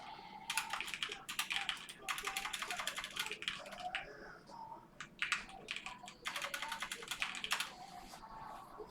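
Typing on a computer keyboard in several quick runs of key clicks with short pauses between.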